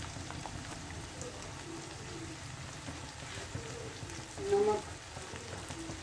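Carrots, peas and potatoes cooking in hot oil in a kadhai, giving a steady soft sizzle with faint ticks.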